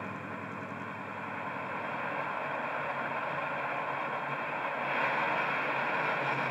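Bachmann Class 55 Deltic model's DCC sound decoder playing a Napier Deltic diesel engine sound through its EM2 speaker while the loco stands still. The engine sound runs steadily, then swells louder and hissier from about two seconds in, peaking near the end.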